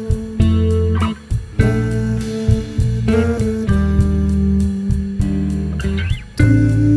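Background music: a guitar-led track with a strong bass line and a steady beat.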